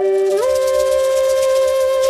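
Background music: a flute-like wind instrument holding long notes, sliding up to a higher held note about half a second in, over a high, fast rattle like a shaker.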